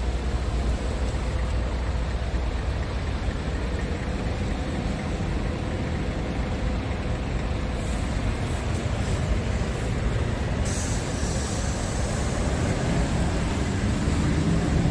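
Scania R tractor unit's diesel engine idling steadily, a low even rumble. A higher hiss comes in about two-thirds of the way through and holds.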